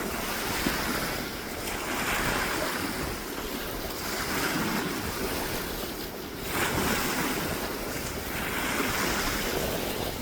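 Sea waves washing in, swelling and fading about every two to three seconds, with wind buffeting the microphone.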